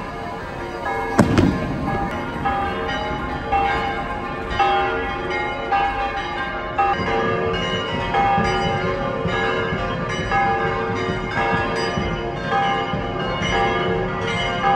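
A single firework bang about a second in, followed by church bells ringing in a fast, continuous festive peal of many overlapping strikes.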